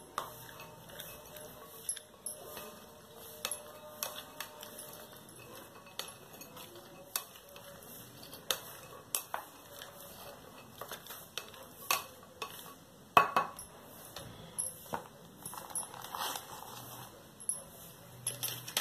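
A spatula stirring a salad in a glass bowl: irregular clicks and taps against the glass with soft scraping between them, one louder knock about thirteen seconds in.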